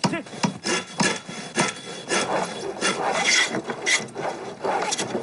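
Woodworking by hand: a hammer striking a chisel into a wooden plank in sharp knocks, and a wooden hand plane rasping along a board in several strokes, shaving off curls of wood.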